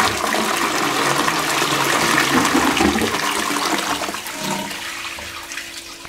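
Balterley Beo toilet doing its small (half) flush: water rushing through the bowl, loud for the first four seconds, then fading as the bowl drains down. A steady tone comes in near the end.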